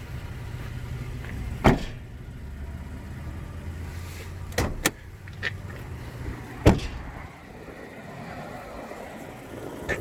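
Power rear sliding window of a 2019 Toyota Tacoma being worked: a low steady hum broken by several sharp clicks and knocks, the hum stopping about seven seconds in.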